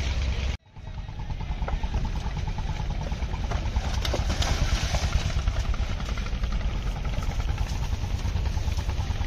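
Steady engine rumble under general outdoor noise, cutting out abruptly about half a second in and then resuming.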